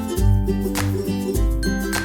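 Background music with plucked strings, such as ukulele or guitar, over a steady beat and bass.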